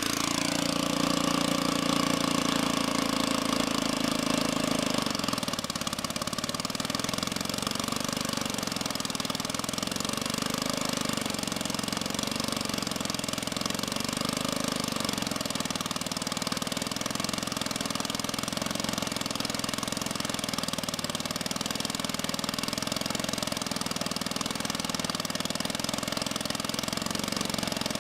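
Sawmill's engine running steadily, easing slightly in level and pitch about five seconds in.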